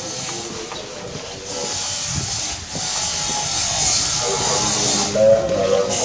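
A steady hiss, loudest in the high range, that drops out briefly three times: about one and a half seconds in, about two and a half seconds in, and for about half a second near the end.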